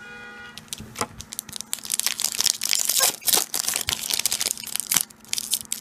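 Foil wrapper of a Pokémon booster pack crinkling and crackling as it is handled and torn open, starting about a second in with a dense run of sharp crackles.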